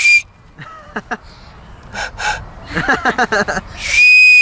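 Thomas & Friends toy whistle blown in loud, steady blasts of a single high note: one ends just after the start and another begins about four seconds in. Between the blasts come gasping breaths and short bursts of a voice.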